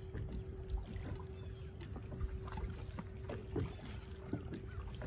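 Wind and water rumble around a bass boat on open water, with a steady low hum and a few faint light ticks from handling the spinning rod and reel.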